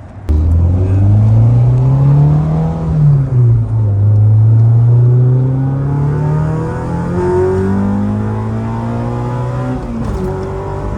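Car engine accelerating under load, its pitch climbing, dropping sharply about three seconds in as it shifts up a gear, then climbing steadily again.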